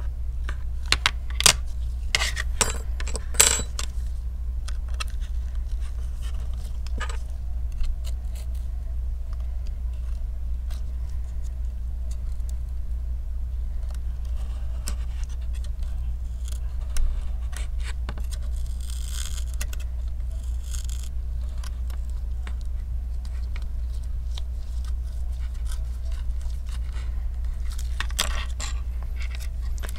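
Metal tweezers and a pry tool clicking and scraping against an iPhone 7 Plus's metal housing and battery while digging out the battery's adhesive tape. A cluster of sharp clicks comes in the first few seconds and a few more near the end, over a steady low hum.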